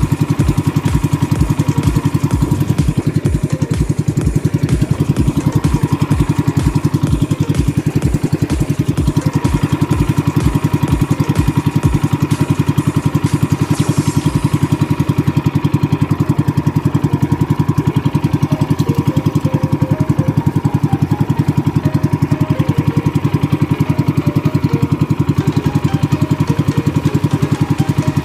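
Small outrigger boat's engine running steadily under way, an even, fast chugging. Low knocks come about twice a second through the first twelve seconds and then stop.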